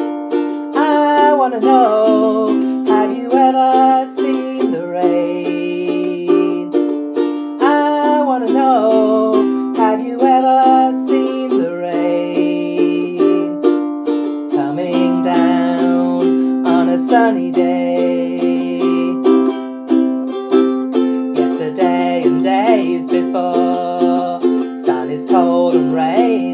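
Ukulele strummed in a steady rhythm with changing chords, a woman's voice singing along over it.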